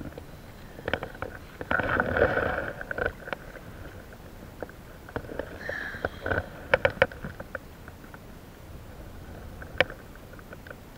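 Wind buffeting the microphone as a steady low rumble, with scattered sharp clicks and two short bursts of rustling handling noise, about two seconds in and about six seconds in.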